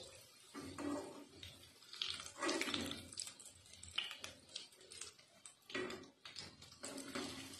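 Potato cutlets frying in hot oil in a steel kadhai, bubbling and sizzling, with irregular scrapes and knocks as a slotted spoon lifts them out of the oil.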